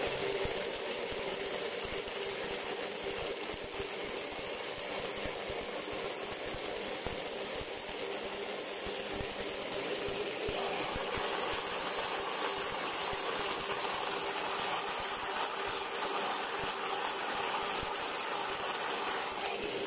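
Electric blender (mixer-grinder) running steadily, grinding pomegranate seeds with water into juice. Its tone shifts slightly about halfway through, and it drops away near the end.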